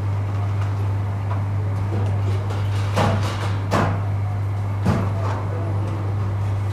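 Steady low hum of a machine running, with three sharp knocks like metal trays or parts striking, about three, three and three-quarter, and five seconds in.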